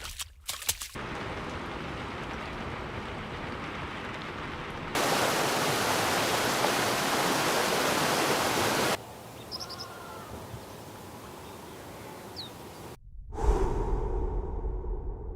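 A run of separate outdoor ambience clips cut together: steady rushing noise that changes abruptly in loudness at each cut, loudest in the middle stretch. A few faint short chirps come in the quieter part after it, and a low rumble begins near the end.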